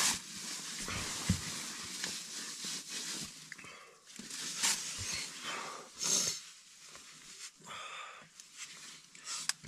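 Soft rustling of a paper tissue and nylon clothing as hands are wiped, in short bursts several times over.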